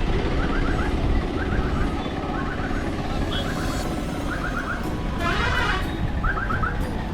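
An electronic alarm chirping in a regular pattern: short bursts of four or five quick rising beeps, about one burst a second, over a steady low rumble.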